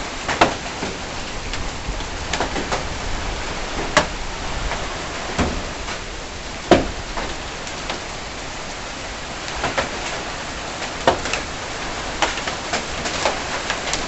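Heavy hailstorm: a steady hiss of rain and falling hail, with hailstones striking hard surfaces as scattered sharp knocks, the loudest about half a second in, at four seconds, near seven seconds and at eleven seconds.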